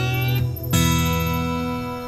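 Background music of plucked guitar notes; a new note is struck about three quarters of a second in and left ringing as it slowly fades.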